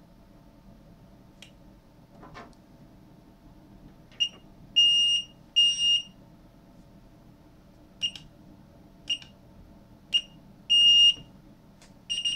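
High-pitched electronic beeps from a car shift light's built-in buzzer as its button is pressed to work the settings menu. A couple of faint clicks come first. Then about eight beeps from about four seconds in: most are short blips, and three are held for about half a second.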